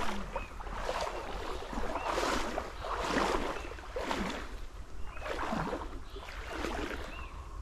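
Someone wading through the shallow water of a small canal: a swish and slosh of water with each step, about once a second.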